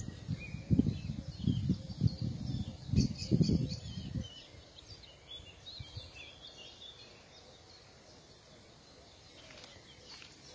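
Small birds chirping in a meadow. Irregular low rumbling on the microphone during the first four seconds.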